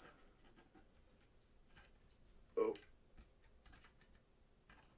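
Faint small clicks and scratches of trading cards being handled and set into clear plastic card stands by gloved hands. There is one brief louder sound about two and a half seconds in.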